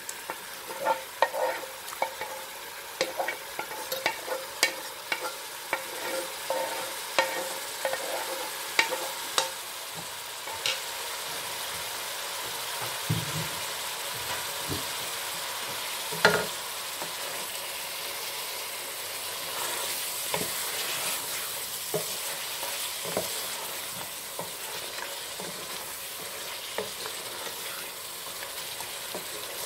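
Wooden spatula stirring and scraping through mutton frying in a pot, knocking against the pot over a steady sizzle. The meat's cooking water has mostly cooked off, so it is now frying in oil. The knocks come thick and fast in the first ten seconds or so, then grow sparser while the sizzle carries on.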